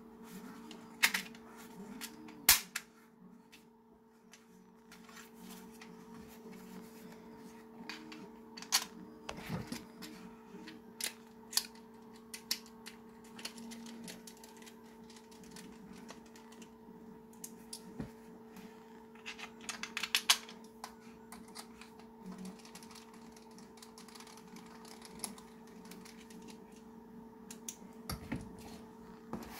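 Irregular clicks and knocks of hard 3D-printed plastic parts being handled and small machine screws being driven with a precision screwdriver, the loudest knocks about two seconds in and around twenty seconds in. A steady hum runs underneath.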